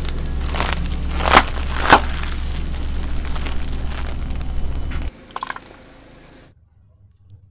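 A car's engine running low while its tyre rolls over plastic-wrapped sponges, with two sharp cracks about a second and a half and two seconds in. The hum cuts off about five seconds in, followed by a few soft clicks.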